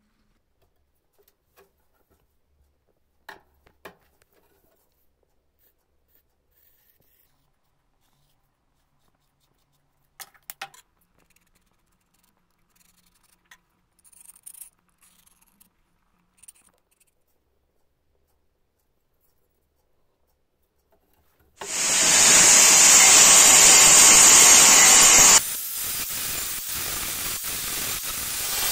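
A few faint clicks and taps of a marker pen and calipers handled on a table, then, about three quarters of the way in, an angle grinder starts grinding into a 5 mm stainless steel knife blank, a loud, steady noise that eases a few seconds later and grows louder again near the end.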